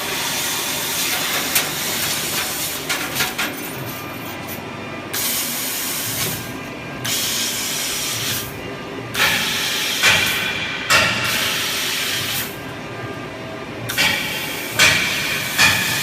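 A 1325 CO2 laser cutting machine cuts stainless steel, its cutting head blowing a loud hiss of assist gas. The hiss stops and starts again several times between cuts, with a few sharp cracks.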